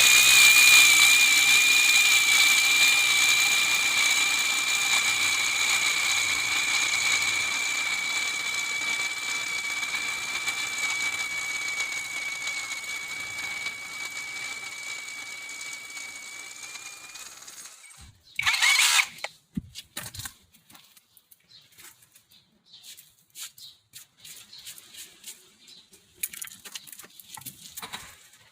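Bauer rotary hammer running in drill hammer mode, a steady high-pitched whine that starts suddenly and slowly fades over about seventeen seconds before stopping. A short second burst follows, then scattered light clicks and rattles.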